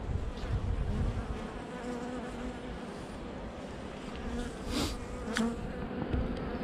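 Honeybees buzzing in a steady hum over an open hive as a comb frame crowded with bees is lifted out. Two sharp clicks come about five seconds in.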